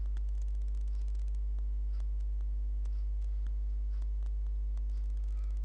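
Steady low electrical mains hum with a ladder of evenly spaced overtones, picked up on the recording line. A few faint clicks come through over it.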